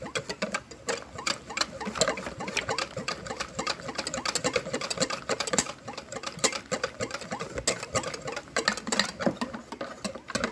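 A utensil stirring a thin batter in a bowl, with quick, irregular clicks and taps of the utensil against the bowl and some soft sloshing.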